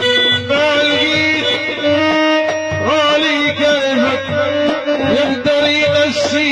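Instrumental break in a Bedouin folk song: an ornamented, wavering melody over a held note and a steady, even drum beat, with no singing.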